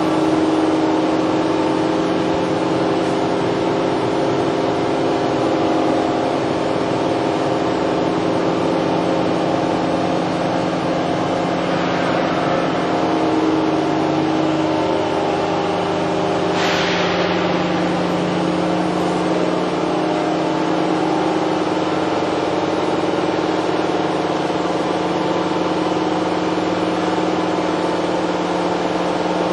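Toshiba MPF-2114C bridge-type vertical machining center running, a steady hum made of several constant tones. A brief hiss cuts in about 17 seconds in and fades within a second.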